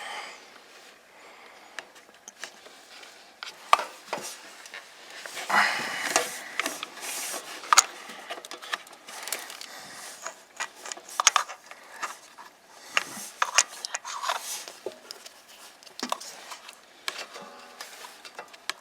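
Irregular clicks, taps and scraping of metal parts being handled and shifted while the pedal safety switch on a Kubota L3200 HST tractor is worked into position. The tractor's engine is not running.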